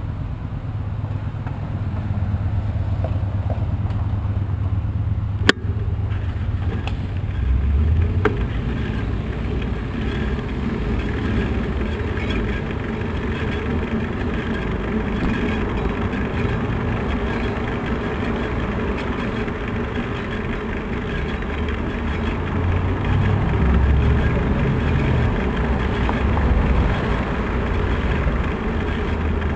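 Ride noise from a bicycle-mounted camera on a city street: a steady low rumble of wind on the microphone and road vibration, with car traffic under it. A sharp click about five and a half seconds in, and a lighter one near eight seconds.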